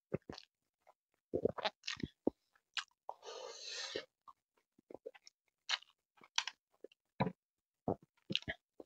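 A person chewing grilled chicken and rice, with scattered wet mouth smacks and clicks. About three seconds in there is a breathy hiss lasting about a second.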